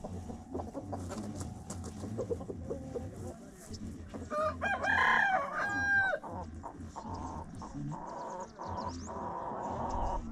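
A rooster crows once about halfway through, one long call lasting nearly two seconds, among chickens clucking.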